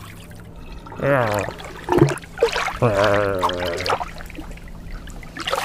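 A cartoon cat character's wordless vocal grumbles in a low human voice: a short falling one about a second in, a brief sound near two seconds, and a longer, drawn-out one about three seconds in.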